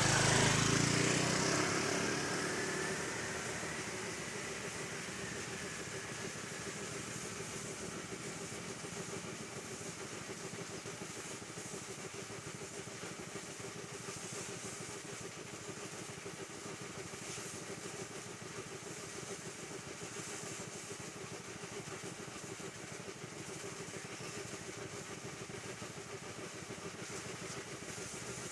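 A machine running steadily with a constant hum and a hiss over it, after a loud burst at the start that fades over the first few seconds.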